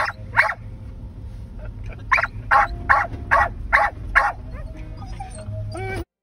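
Dog barking from a truck's open side window: two barks at the start, then a run of six quick barks about two and a half a second, over a steady low rumble. A brief whine near the end, then the sound cuts off suddenly.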